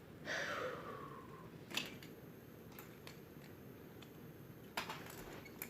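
Faint clicks and light knocks of small toy pieces being handled and fitted together, about five separate clicks, with a short falling tone near the start.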